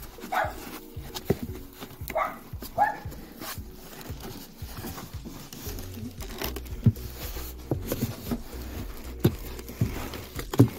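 Sharp knocks and taps of ceramic mugs being handled in their cardboard box insert, the loudest near the end. Three short high-pitched calls come in the first three seconds.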